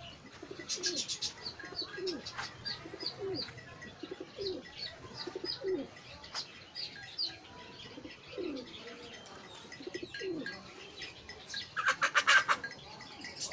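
Domestic pigeons cooing in repeated short, low, falling notes, with small birds chirping higher up. Near the end a brief loud rattling burst stands out above them.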